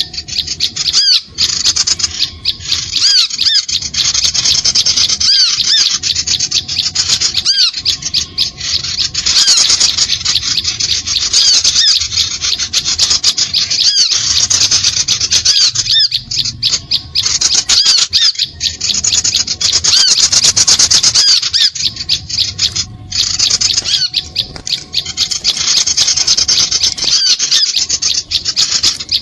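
Small birds chattering: a dense, continuous stream of rapid high-pitched chirps and twitters, broken by short pauses every few seconds. This is a bird-lure call recording meant to draw small birds in.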